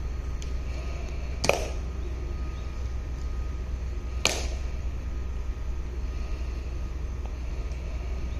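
Two sharp clicks about three seconds apart, the first the louder: heel clicks of a ceremonial guard's shoes on the stone plaza as he halts and faces about. Under them is a steady low rumble of wind and ambience.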